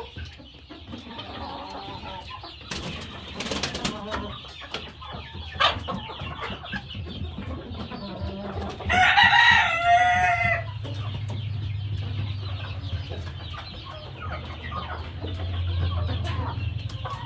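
Chickens clucking in a pen, with one rooster crowing loudly about nine seconds in, the crow lasting a little under two seconds and dropping in pitch at its end.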